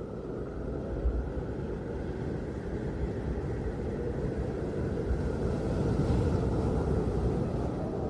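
A steady, low rumbling noise with irregular surges in the lowest range. It swells gradually for the first six seconds or so, then eases slightly near the end.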